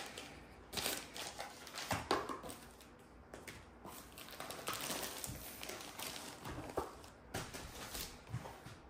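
Plastic packaging rustling and crinkling in irregular bursts as a bagged toolkit and a plastic-wrapped rolled diamond-painting canvas are handled and lifted out of a long cardboard box, with a few light knocks of the box.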